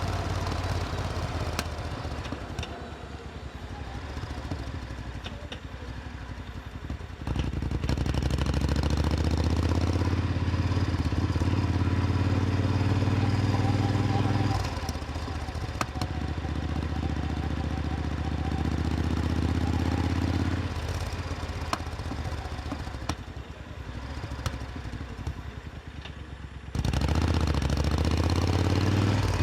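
Supercharged Triumph Thunderbird Storm's parallel-twin engine running at a steady pitch. It gets much louder and fuller for several seconds about a quarter of the way in, drops back about halfway, and comes up loud again near the end.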